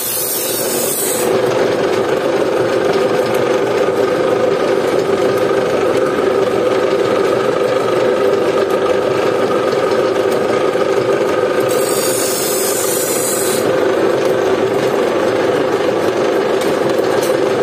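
A steel sickle blade being sharpened, a continuous scraping with no pauses, with a short hiss at the start and again about twelve seconds in.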